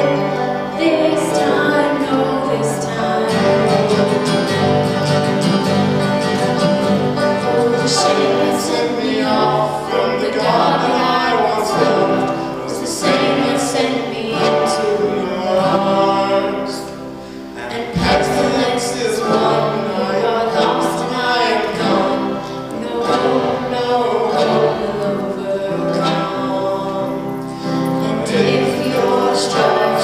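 A band playing a folk-rock song live, with several voices singing together over the instruments.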